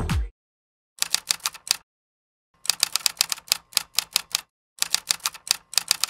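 Typewriter keystroke clicks used as a sound effect, in three quick runs of rapid clicks with short silent pauses between them.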